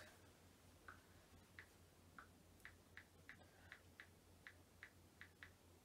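Faint, quick clicks of typing on a smartphone touchscreen, about a dozen taps at an uneven pace of roughly two a second, over a faint low hum.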